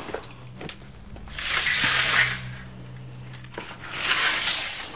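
Two long rustling swishes, each about a second, as rubbish is cleared from the floor, over a faint steady low hum.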